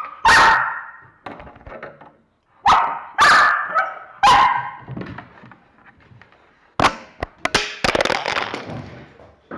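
A dog barks loudly about four times, then from about seven seconds in there is a cluster of sharp knocks and a rough scraping as the dog jumps at and jostles the camera.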